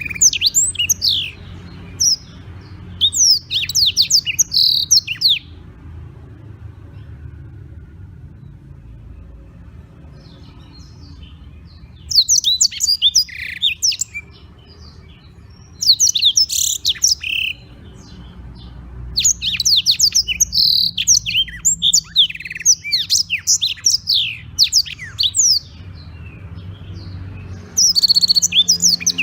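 Black-throated canary singing long bursts of rapid, high twittering song, several phrases broken by pauses of a few seconds, over a steady low hum.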